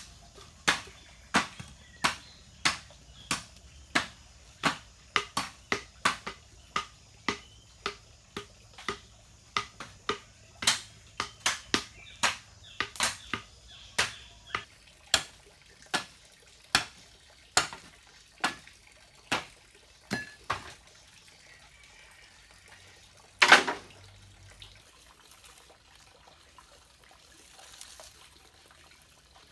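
A steady series of sharp knocks, about three every two seconds, for about twenty seconds, then a single louder knock a few seconds later.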